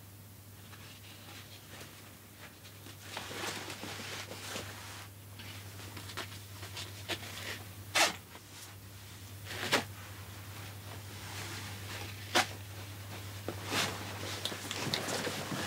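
Nylon webbing strap being pulled and slid through a plastic side-release backpack buckle, a zip-like rustle, with a few sharp plastic clicks as the buckle is handled.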